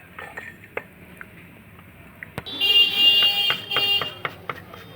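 A few light clicks of small tools being handled, then a sharp click followed by a loud electronic buzzing tone lasting about a second and a half.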